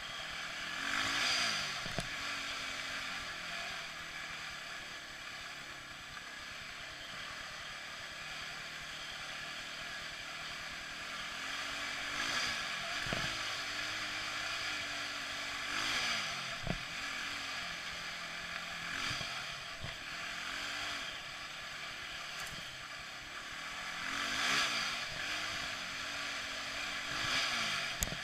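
ATV (four-wheeler) engine running on a dirt trail, revving up and easing off several times over a steady rushing noise, with a few sharp knocks.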